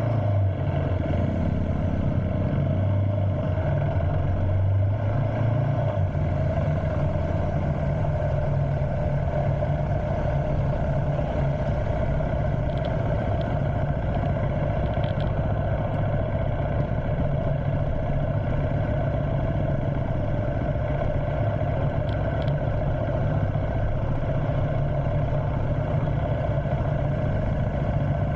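Motorcycle engine running steadily while riding, heard from the bike itself.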